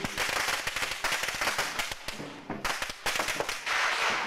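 A string of firecrackers going off: a rapid, irregular crackle of many sharp pops, with a brief dip a little over two seconds in before the popping picks up again.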